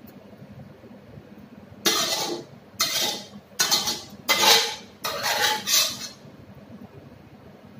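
Metal spatula scraping around a stainless steel wok, about six short scrapes in quick succession between about two and six seconds in, scooping out the last of the stir-fry.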